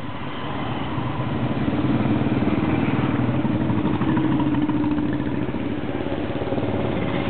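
Royal Enfield Bullet motorcycles riding past one after another, their single-cylinder engines running with a steady, even beat that grows a little louder about two seconds in.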